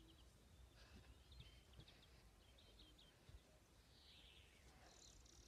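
Near silence: faint outdoor ambience with small birds chirping a few short calls in the background.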